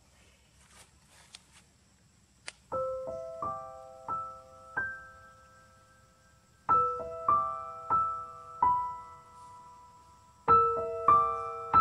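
Soft, slow solo piano background music, played as short phrases of a few notes that ring and fade, each phrase followed by a pause. The first couple of seconds are nearly silent.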